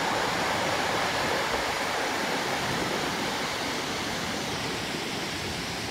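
Broken surf washing up a pebble beach: a steady rush of foaming whitewater that eases slightly toward the end.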